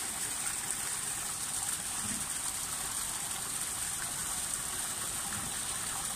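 Water of the Barcaccia fountain splashing steadily into its stone basin.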